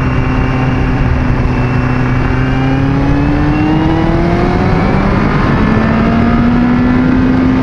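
Yamaha FZ1 sport bike's inline-four with an aftermarket exhaust accelerating hard to overtake: engine pitch climbs, drops about five seconds in at an upshift, then climbs again. Steady wind rush over the microphone throughout.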